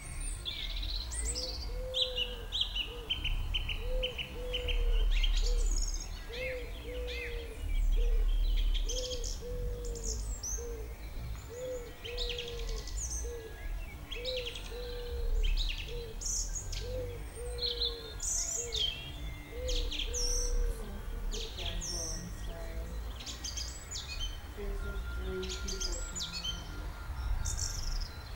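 Several birds singing and chirping with quick high whistles and trills, over a low two-note hooting call repeated about every second and a half for most of the time. A low rumble runs underneath.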